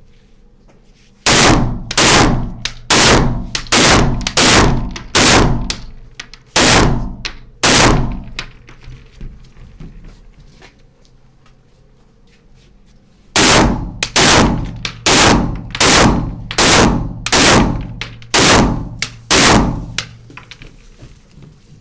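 Rapid semi-automatic rifle fire from an H&K MR223 in .223: a string of about ten shots, a pause of about five seconds, then a second string of about ten shots at a steady pace of roughly two a second.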